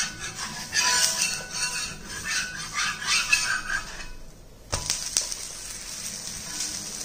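A flat spatula scrapes under a pearl-millet dosa on a cast-iron tawa as it is turned over. There is a sharp clack a little under five seconds in as it goes back down on the pan, then the dosa sizzling in a little ghee.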